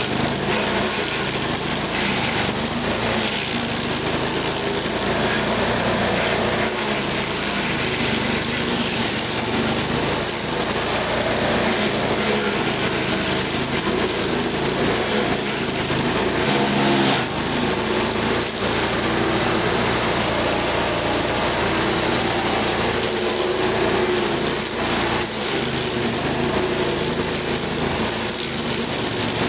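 LASKI F500H stump grinder's engine running under load while its toothed cutting wheel grinds into an ash stump, a steady dense grinding noise.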